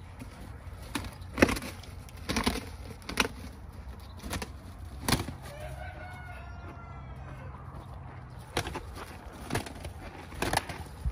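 Two gamecocks sparring: repeated sharp wing flaps and strikes as they fly at each other. A rooster crows once about halfway through.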